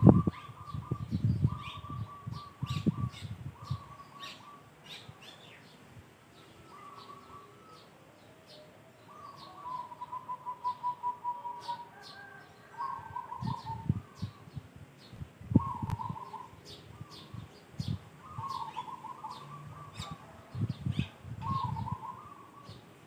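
Birds calling: short trilled phrases of quick notes repeat throughout, with a longer run of rapid notes near the middle, over scattered sharp high chirps. Low rumbling bursts come and go near the start and through the second half.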